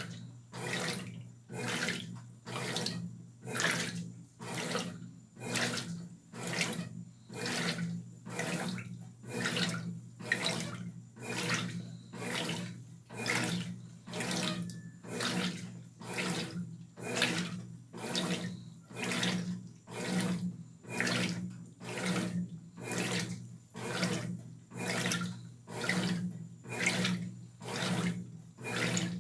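Brastemp BWR12AB top-loading washing machine in its wash agitation: water and clothes sloshing in even strokes, about three every two seconds, over a steady motor hum.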